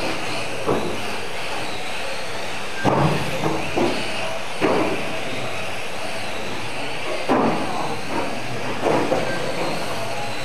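Electric radio-controlled mini touring cars racing on a carpet track: a steady high whine and hiss of their motors and tyres, broken by several short knocks.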